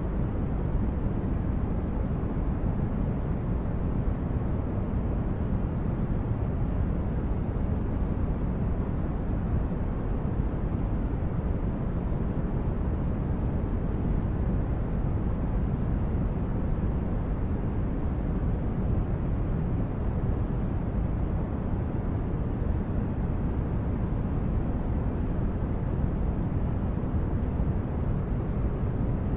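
Sound-designed spaceship-interior ambience: a steady, deep rumble of brown noise with no distinct events.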